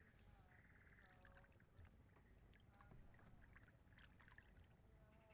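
Faint small-animal calls: short buzzy trills repeating about once a second, with a few brief pitched notes and light ticks, over a low hum.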